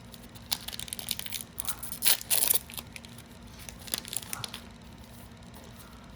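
Foil trading-card booster pack being torn open and its wrapper crinkled: a run of sharp rustles, loudest about two seconds in, that stop after about four and a half seconds.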